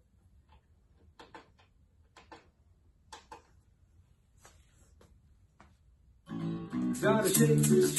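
A few faint clicks and rattles, then a children's song with strummed acoustic guitar starts suddenly about six seconds in, played on a portable CD player.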